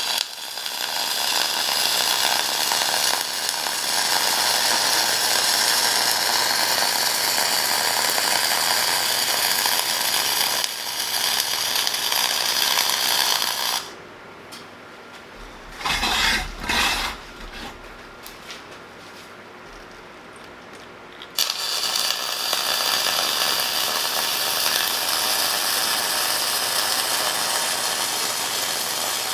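Millermatic 251 MIG welder running .045 flux-core wire, the arc going steadily as a weld bead is laid. The arc stops about 14 seconds in, with a brief louder noise during the pause, and strikes again about 21 seconds in.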